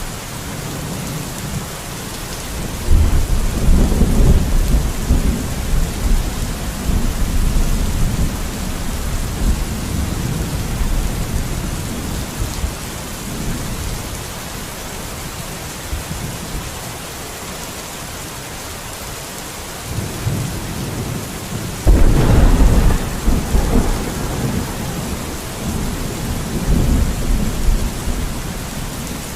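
Steady rain falling, with two long low rumbles that break in suddenly, about three seconds in and again about 22 seconds in, each fading away over several seconds.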